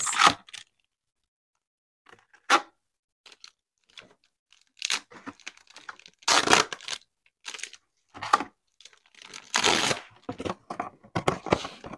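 A white trading-card pack wrapper being torn open and crinkled by hand, in short irregular rips and rustles. It is quiet at first, with one brief rip, and grows busier after the middle, the loudest tears coming near the middle and toward the end.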